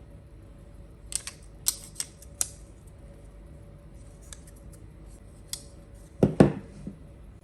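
Small stencil-kit package being unpacked by hand: a run of light, sharp clicks and snips from plastic and metal parts, fainter ticks, then one louder thump about six seconds in. A faint steady hum lies underneath.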